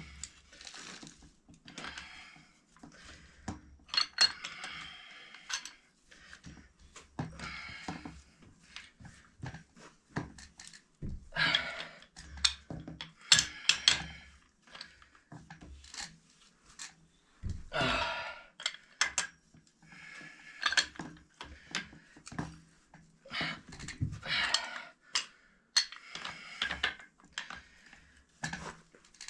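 Pipe wrenches working the threaded fittings and a 90° elbow on a sand-point well pipe as they are tightened. Irregular metal clinks and short scraping rasps come in bursts a second or two apart.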